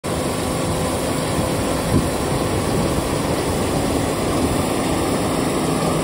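John Deere S790 combine harvester running steadily as it cuts and threshes peas through its draper header, a dense mechanical drone with a brief louder bump about two seconds in.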